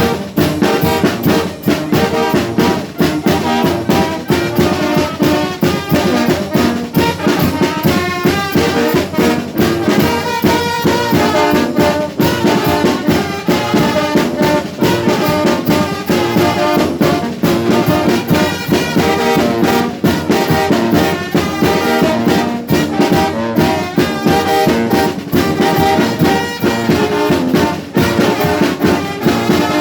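Mexican banda brass band playing a song: brass horns carry the melody over a steady, even drum beat.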